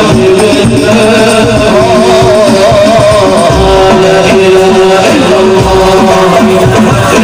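Men singing an Islamic sholawat devotional song into microphones, a lead voice holding long, wavering ornamented notes, over hand-drum accompaniment.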